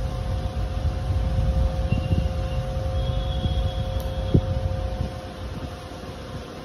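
A steady low mechanical hum with a steady whine running through it, which drops away about five seconds in. A couple of faint short clicks sit on top of it.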